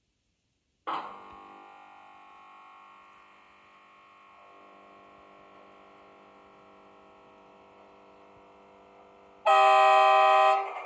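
Sound decoder of a model MÁV V43 electric locomotive: a sudden start about a second in that settles into a steady hum of several tones, then a loud horn blast lasting about a second near the end.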